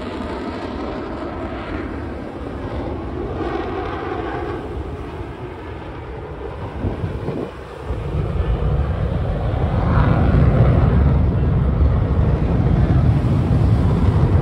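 Jet noise from Blue Angels F/A-18 Super Hornets flying over, dipping briefly and then growing much louder and deeper about halfway through as the jets come closer.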